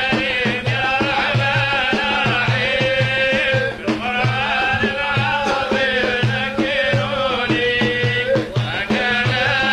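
Traditional folk music accompanying a sung qasida: a wavering melody over a steady, regular low drum beat.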